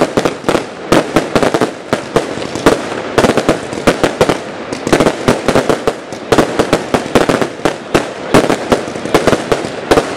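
Consumer firework cakes firing together in a finale: a dense, unbroken barrage of bangs from shots and bursts, many a second.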